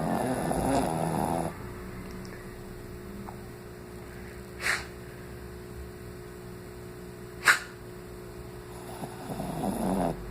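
Snoring: one loud snore lasting about a second and a half, then quiet breathing broken by two brief sharp noises about three seconds apart, and another snore building near the end.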